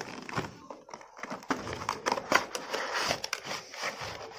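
Cardboard earphone box being opened by hand: quiet rustling and scraping of cardboard and paper, with scattered small clicks and taps.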